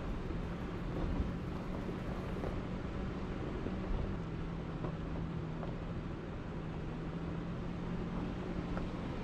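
Off-road vehicle's engine running at a steady low hum, with the rumble of tyres on a rough gravel track, heard from inside the cabin. The engine note drops slightly about four seconds in.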